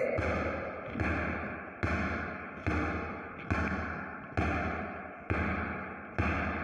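Basketball bounced on a tiled floor in a crossover dribble, passed from one hand to the other through a bounce in the middle. There are eight bounces, a little under a second apart, each ringing on in the bare room.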